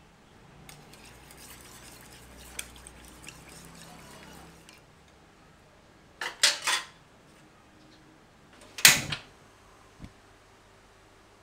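A utensil stirring liquid in a ceramic bowl, scraping softly with small clinks, then several sharp clinks or knocks against the bowl, the loudest about nine seconds in.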